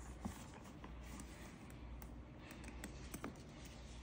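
Faint handling noise of a Taurillon leather sling bag being turned over in the hands: a few light taps and clicks, near the start and again in the second half, over a low steady hum.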